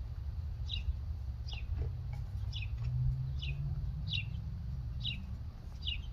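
A bird repeating one short, falling chirp about once every 0.8 seconds, over a steady low rumble.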